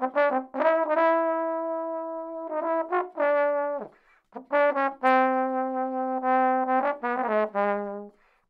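Solo trombone playing a melodic phrase: quick short notes around two long held notes, the second held note lower, ending in a falling run of notes.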